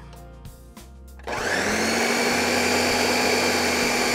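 Countertop blender switched on about a second in, its motor running steadily as it purees tomato sauce with roasted jalapeños and garlic into salsa.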